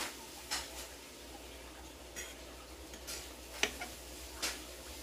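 A person eating: about six short, wet clicks and smacks of chewing and mouth sounds, spread irregularly through a few seconds.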